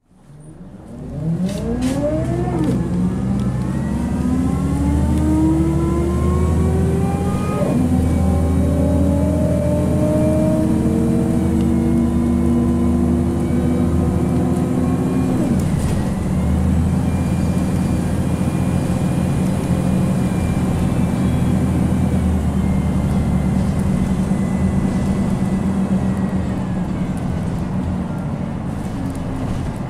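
Scania L94UB bus pulling away and accelerating, heard from inside. The five-cylinder diesel's deep hum sits under a loud whine from the ZF Ecomat four-speed automatic gearbox. The whine rises in pitch and drops at two gear changes, about a quarter and half of the way through, then holds steady before falling away near the end. This is a gearbox the owner notes has loud ZF whine and slipping gears.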